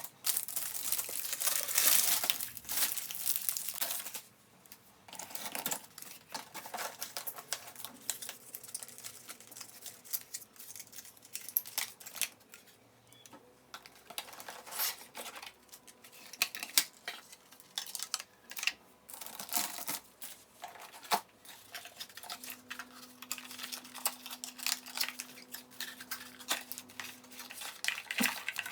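Packaging being unpacked by hand: plastic and cardboard crinkling, rustling and tearing, with scattered clicks and taps. It is loudest and busiest in the first few seconds, then comes in short irregular bursts.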